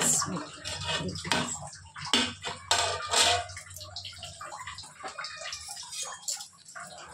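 Steel plate lid lifted off a pan of dum biryani with a cloth: clinks and scraping of metal on the pan's rim in the first few seconds, then a few small clicks over a low steady hum.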